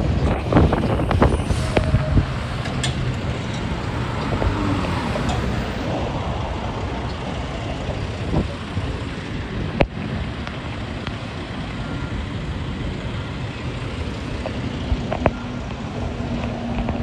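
Road traffic going by at an intersection: engines and tyres of passing cars, pickups and a heavy dump truck, with wind on the microphone. A few short knocks sound near the start.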